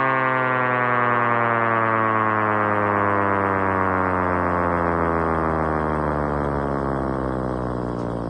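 Electronic emergency-alert siren tone sliding slowly and steadily down in pitch over a steady low drone, winding down and fading near the end.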